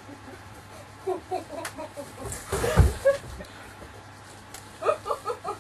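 Audience laughing in short, choppy bursts in three bouts, with one heavy thump from the stage about three seconds in.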